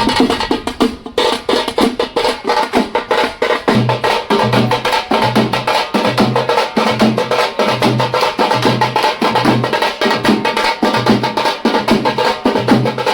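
Background music with a fast percussion beat and a pulsing bass line.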